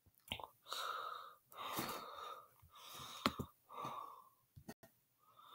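A person's breathy wheezing: a run of about six noisy breaths, roughly one a second, with no clear voice in them.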